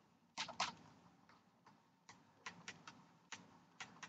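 Faint, irregular clicks and taps of a stylus on a pen tablet as words are handwritten, about a dozen in all, with gaps of up to a second and a half between them.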